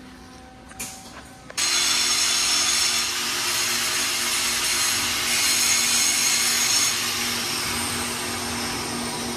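A power tool or shop motor starts suddenly about a second and a half in and then runs steadily and loudly, after a few light knocks.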